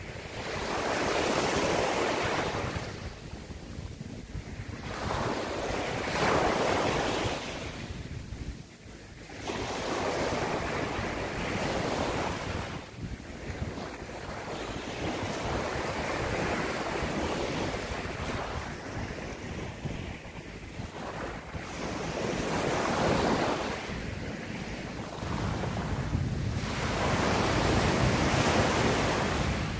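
Small sea waves breaking in the shallows and washing up the sand, swelling and easing every few seconds, with wind buffeting the microphone as a low rumble.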